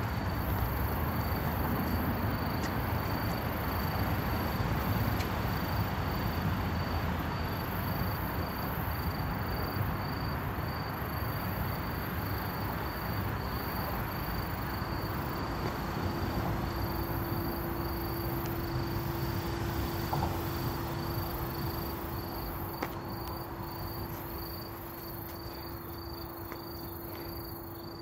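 Insects chirping in steady, evenly pulsed trains over a continuous background rush of noise. A steady hum joins about halfway through.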